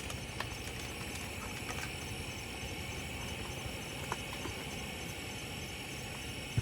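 Steady chorus of insects, with a high, even trill and a faint rapid pulsing chirp above it, over a low continuous rumble; a few faint clicks.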